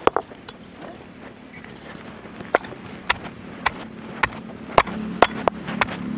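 Hand-turned granite grinding stone (aattukal) crushing garlic cloves: the stone pestle rolls and grinds in the stone mortar, with sharp knocks and cracks about twice a second from about halfway through.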